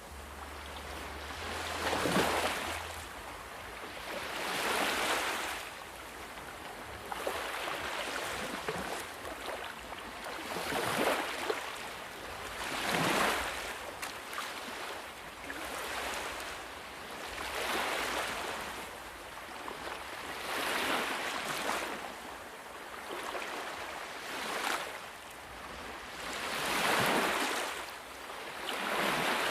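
Ocean waves breaking and washing ashore, the surf swelling and fading about every two to three seconds.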